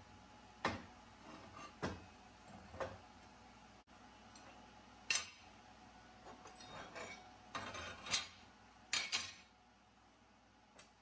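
Steel plate pieces and tools being handled and set down on a steel welding table: a string of separate sharp metallic clinks and knocks, with a quicker clatter of several in the second half.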